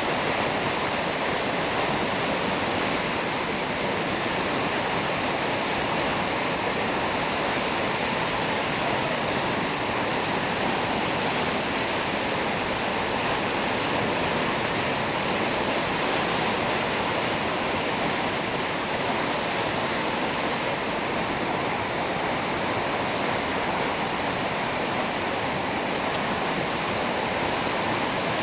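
The Cannon River in flood: a steady rush of fast-flowing, high floodwater.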